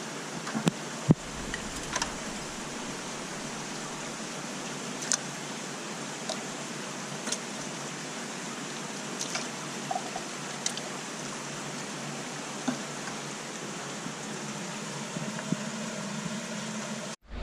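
Black coated-wire minnow trap being unclipped and pulled apart over a plastic bucket: scattered light clicks and taps of the wire mesh and clip, over a steady rushing hiss.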